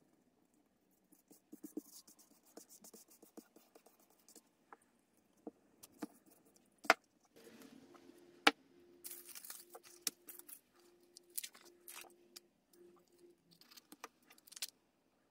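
Paper and journal pages being handled on a tabletop: faint rustling with light taps and two sharp clicks about seven and eight and a half seconds in.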